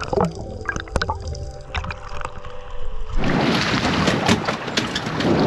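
Underwater sound picked up by a diving camera: scattered sharp clicks and pops over steady low tones. About three seconds in it switches abruptly to loud splashing water at the surface as a diver swims.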